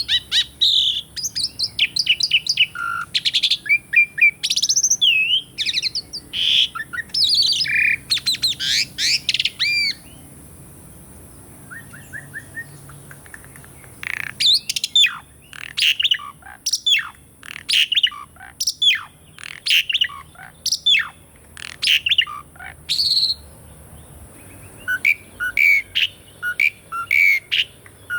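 Asian pied starling (jalak suren) singing: a fast, varied run of whistles and chattering notes, a pause of a few seconds about ten seconds in, then a string of sharp, falling whistles and, near the end, short repeated chirps.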